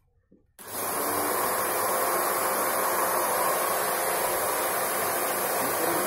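JK-8 1000-watt vacuum cleaner switched on in blower mode about half a second in. Its motor runs steadily, blowing air out through the hose.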